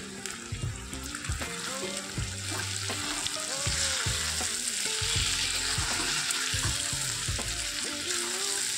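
Raw chicken pieces sizzling in hot oil in a kadai with fried onions and ginger-garlic paste, stirred with a steel spatula that scrapes and knocks against the pan. The sizzle grows louder a few seconds in as the meat starts to fry.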